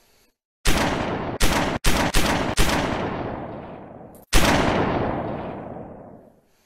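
Pistol gunshot sound effects: five shots in quick succession, then a sixth after a short pause, each with a long echoing tail that fades away.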